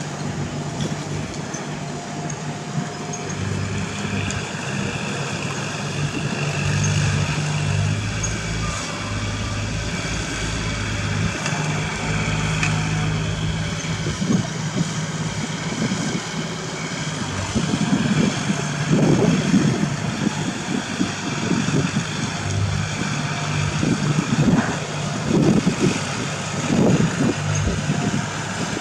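Kubota L4018 tractor's diesel engine running steadily as it pulls a rear rotary implement through dried corn stalks. In the second half, irregular crunching bursts grow louder as the stalks are flattened close by.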